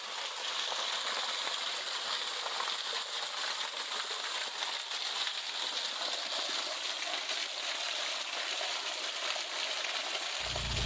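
Waterfall: a steady, even rush of falling water. A low rumble comes in just before the end.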